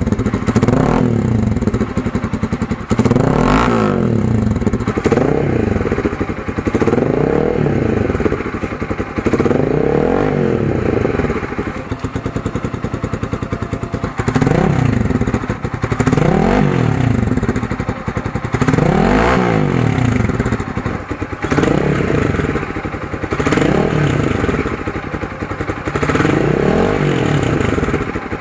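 Motorcycle engine breathing through an Akrapovic Hexatip muffler with its silencer insert removed, blipped repeatedly: about a dozen quick revs, each rising and falling back to idle, roughly every two seconds. Deep, bassy exhaust note.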